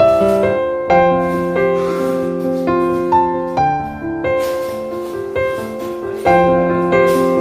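Background piano music: gentle chords struck about once a second, each left to ring.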